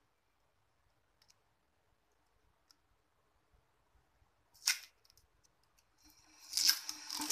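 Plastic wrapping crinkling as a bar of herbal paste is unwrapped by hand: one short crinkle about halfway through, then steadier crackling and rustling near the end.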